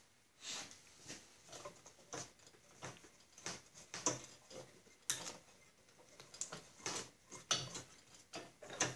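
Light, irregular clicks and knocks of metal parts being handled and fitted on a Snapper walk-behind mower's belt drive, with a belt being worked around the pulleys.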